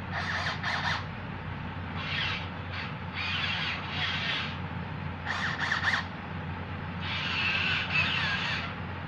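The small electric drive motors of a homemade wooden RC toy tractor whine in short, wavering bursts of up to a second or so as it drives and stops, over a steady low hum.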